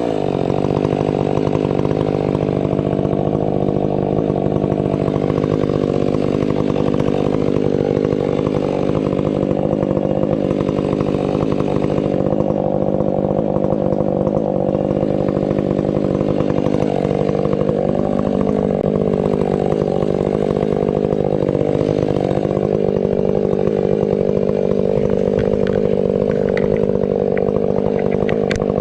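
Stihl 500i two-stroke chainsaw running hard at high throttle while bucking firewood, its pitch sagging and recovering about two-thirds of the way through as the cut loads it.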